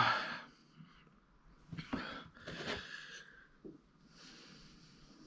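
A man's pained groan fading out, then two sharp, hissing breaths through the mouth about two and three seconds in, from the burn of a Carolina Reaper chilli.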